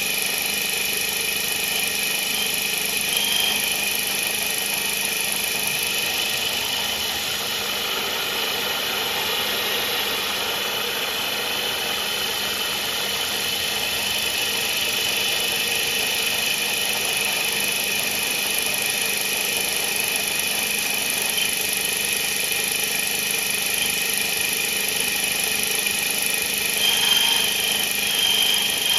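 CNC mill spindle running an indexable carbide-insert 82° countersink through aluminum under flood coolant: a steady machine whine with a constant high tone over cutting and spray noise, with a few brief louder swells near the end.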